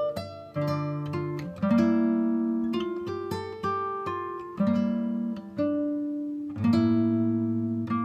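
Background music: an acoustic guitar plucking notes and chords, each note starting sharply and ringing down before the next.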